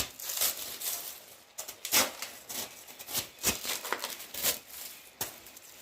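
Plastic bag of frozen coriander crinkling and rustling as it is handled, in a string of irregular crackles and clicks.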